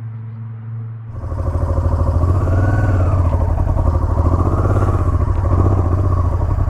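Motorcycle engine idling close to the microphone, a loud, rapid, even pulsing. It sets in suddenly about a second in, after a quieter steady hum.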